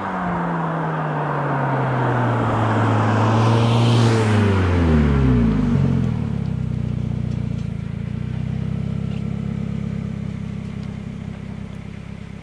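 2015 Subaru WRX's turbocharged flat-four, through a cat-back exhaust with a resonator and a muffler delete, driving up and past close by. The engine note falls, holds, then drops again as the car passes about five seconds in. After that the engine idles steadily as the car stops, slowly fading.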